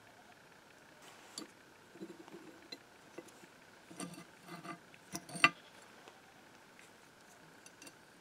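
Gloved hands handling the small rusty steel parts of a cast iron eyelet press during disassembly: scattered light metallic clicks and clinks, the sharpest a little past the middle.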